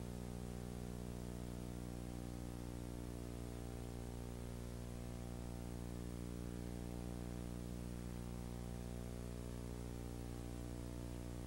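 Steady electrical mains hum with a stack of overtones under a faint hiss; nothing else is heard.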